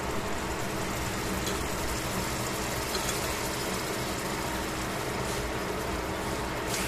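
Slices of beef sizzling in a stainless steel frying pan: a steady hiss with a few faint crackles, over a steady low hum.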